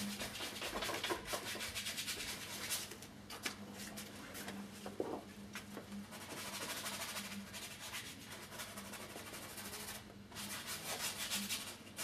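Paintbrush scrubbing and stroking oil paint across a canvas, a rapid run of scratchy rubbing strokes with a brief pause near the end. A low hum comes and goes underneath.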